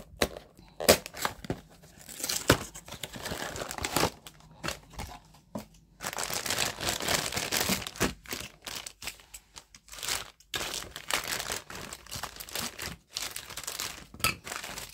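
Small cardboard box opened with a few sharp clicks and taps, then the clear plastic bag around an anime figure's parts crinkling and rustling in the hands in several long stretches.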